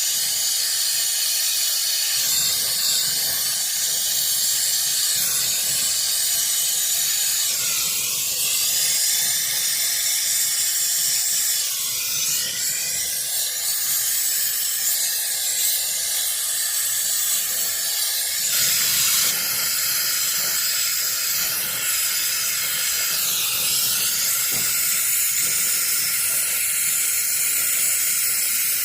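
Gas brazing torch flame hissing steadily while the new air-conditioner compressor's copper pipe joints are brazed on, its tone wavering now and then as the flame is moved.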